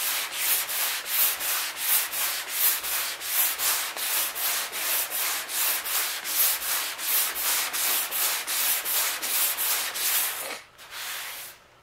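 Long hand sanding board with sandpaper pushed back and forth over cured body filler, a rasping scrape on each stroke at roughly two to three strokes a second, stopping briefly near the end. This is block sanding over a black guide coat to show the high and low spots in the filler.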